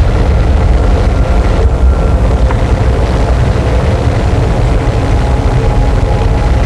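Noise music: a loud, dense, unbroken wall of rumbling distorted noise, heaviest in the bass, with faint steady tones humming through it.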